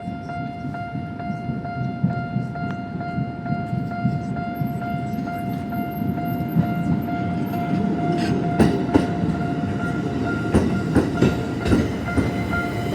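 Tokyo Metro Ginza Line train running slowly over a level crossing: a steady low rumble, with wheels clacking over the rail joints and crossing from about eight seconds in. A steady ringing tone, the crossing's warning bell, sounds over it throughout.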